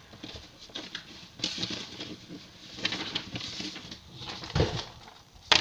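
Irregular rustling and soft knocks of handling close to the microphone, as hair or clothing brushes over it.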